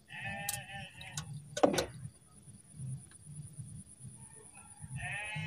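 An animal bleating twice: a short wavering call at the start and a longer one near the end. Two sharp knocks fall between the calls.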